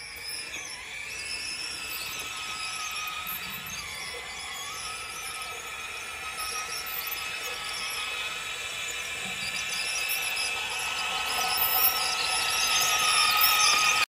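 Electric motor and hydraulic pump of a radio-controlled hydraulic tracked machine whining steadily. The pitch dips briefly about four seconds in, and the whine grows louder toward the end.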